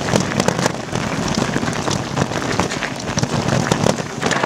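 Mountain bike riding fast down a loose gravel and stone trail: the tyres crunch steadily over the stones, with a dense clatter of small knocks and rattles.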